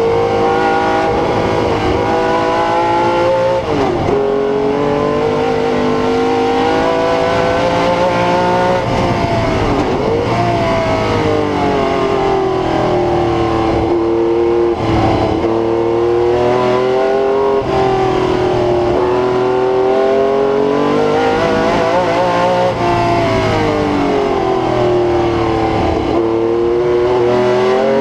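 Ferrari 512 M's V12 racing engine heard onboard under hard acceleration. Its pitch climbs and falls repeatedly, with a short break at each gear change, about five or six times.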